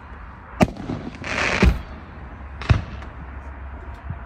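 Fireworks going off: three sharp bangs about a second apart, with a short hissing crackle just before the second bang.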